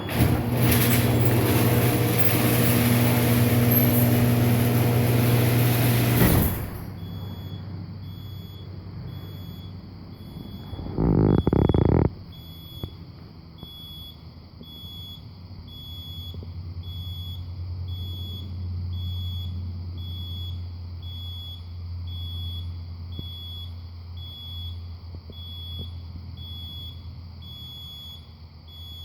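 A 1997 Genie garage door opener's motor runs for about six seconds as the door travels, then stops. A Garage AutoCloser warning beep sounds about once a second throughout, and a loud noise lasting about a second comes near the middle.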